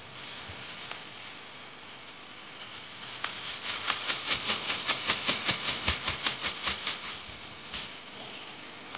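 Plastic and paper bags crinkling as fish-fry breading is poured and shaken into a bag to coat fish, with a quick rhythmic crinkling of about four shakes a second through the middle. A steady hiss runs underneath.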